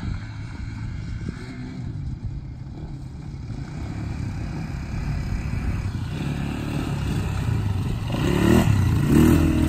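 Two small ATV engines, the KXD 200 cc and a 125 cc quad, running under throttle and growing louder as they approach. They are loudest as they pass close near the end, with the engine note rising and falling.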